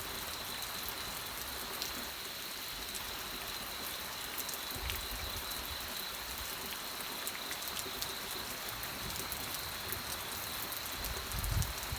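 Steady rain with many scattered drop ticks, and a faint steady high tone beneath it. A low rumble comes up near the end.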